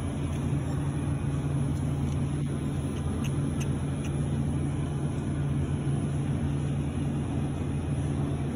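Steady low machine hum of a supermarket's refrigerated produce display case, with a thin high whine above it and a few faint ticks about three and a half seconds in.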